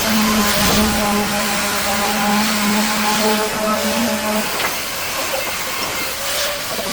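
Sawmill machinery running: a steady machine hum under a loud, continuous hiss. The hum stops about four and a half seconds in, while the hiss goes on.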